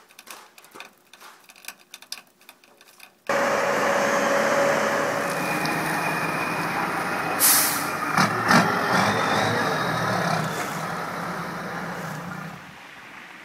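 A heavy engine starts running loudly about three seconds in, with a sharp burst of hiss near the middle, and drops away shortly before the end.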